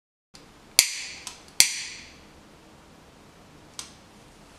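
A handheld lighter struck to light a tealight: two sharp clicks a little under a second apart, each with a short bright hiss of the spark, then a fainter click a few seconds in.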